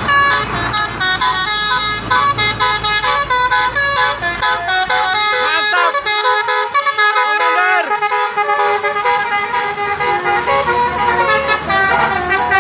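Bus telolet horn (Basuri type) playing a fast melody: several horn tones sounding together and stepping rapidly from note to note, with a few swooping rising-and-falling notes about six to eight seconds in. A low engine rumble runs underneath for the first half and returns near the end.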